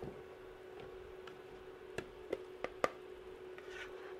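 Metal spoon scraping and knocking in a frying pan as cooked sofrito is scooped into a blender jug: a few sharp clicks in the second half, over a steady faint hum.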